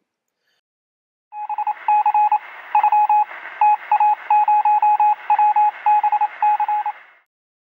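Morse code: a steady beep keyed on and off in short and long pulses, over a hiss of radio-like static. It starts about a second in and stops near the end.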